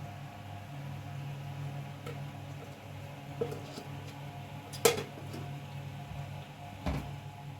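Kitchen dishes and utensils being handled, with two sharp clinks, the louder about two-thirds of the way through and another near the end, over a steady low hum.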